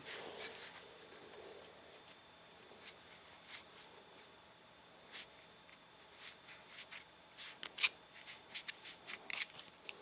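Faint, irregular clicks and scratches of a thin metal tool pushing cotton balls down into a Zippo lighter's insert and ticking against the metal, with two sharper clicks about three-quarters of the way through.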